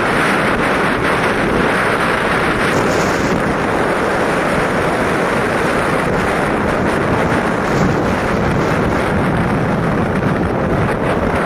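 Steady wind rush buffeting the microphone, with the road and engine noise of a moving vehicle underneath.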